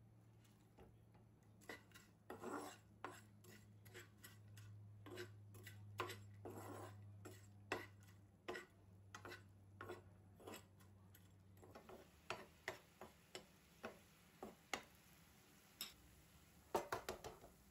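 Metal fork tapping and scraping against a frying pan while stirring and mashing soaked crushed masala wafers: a run of light irregular clicks, with a low hum underneath for the first two-thirds and a quick cluster of taps near the end.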